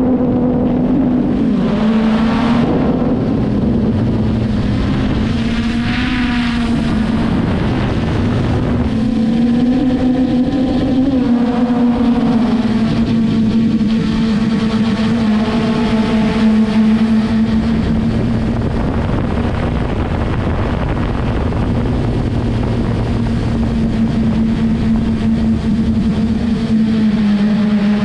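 Traxxas Aton quadcopter's motors and propellers buzzing in flight: a steady hum that rises and falls a little in pitch several times as the drone manoeuvres.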